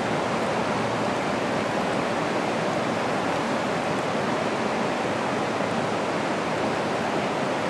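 Rushing river water tumbling through a rocky riffle and rapids: a steady, even rush with no change.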